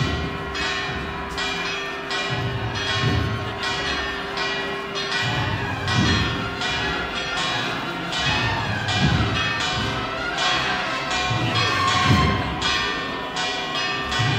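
Church bells pealing, struck in a steady quick rhythm with their tones ringing on between strikes, over a few low thuds.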